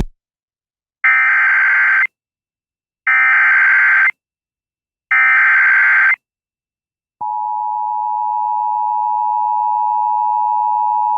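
Emergency Alert System header: three one-second bursts of SAME digital data squawk, about a second apart, then the steady two-tone EAS attention signal starting about seven seconds in and held to the end. Together they mark the start of a new alert, here a severe thunderstorm warning.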